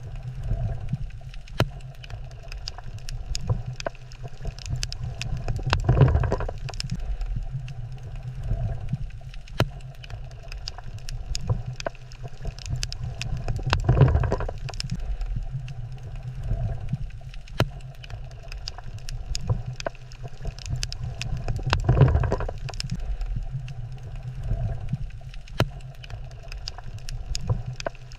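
Coral reef water ambience: a steady low rumble scattered with sharp clicks, swelling louder about every eight seconds.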